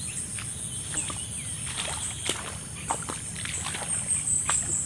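Steady high-pitched insect drone, with scattered short chirps and clicks. Near the end come louder splashes of rubber boots wading in shallow water.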